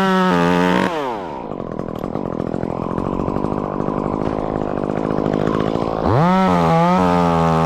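Chainsaw revved to full throttle, dropping back to idle for several seconds, then revved up hard again about six seconds in.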